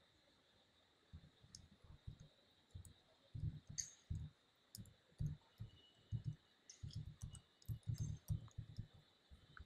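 Faint typing on a computer keyboard: an irregular run of quick key taps, mostly dull low thuds with a few sharper clicks, starting about a second in and stopping just before the end.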